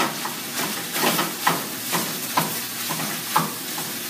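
Food sizzling in a frying pan on a gas burner while a utensil stirs it, the strokes scraping the pan about twice a second.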